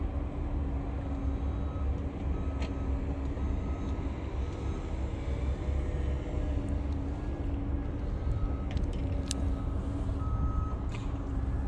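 Steady low rumble of heavy vehicle engines with faint, intermittent beeps of a reversing alarm, as from machinery at a construction site, and a few light clicks.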